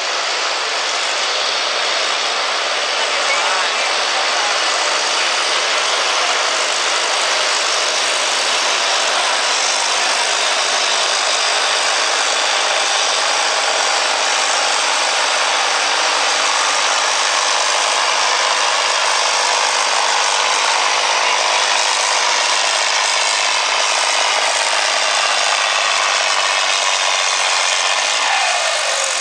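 Green John Deere farm stock tractor's engine running hard under load, dragging a weight-transfer pulling sled down a dirt track. The sound is loud and steady throughout.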